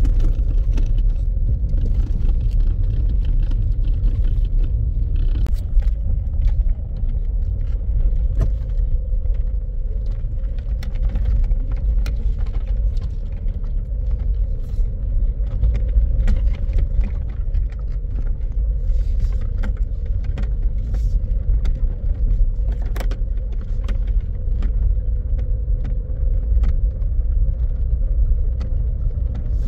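A vehicle drives over a rough road: a steady low rumble with frequent rattles and knocks.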